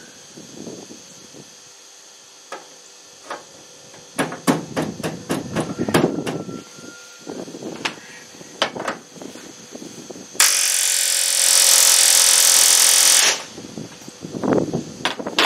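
Scattered knocks and clicks of metal being handled, then a pneumatic rivet gun hammering a solid rivet in one loud, steady burst of about three seconds, about two-thirds of the way in.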